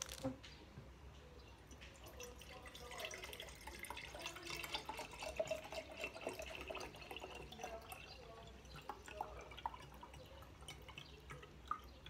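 Faint water dripping and trickling, heard as scattered small clicks and short ringing drops that are busiest in the middle, over a low steady hum.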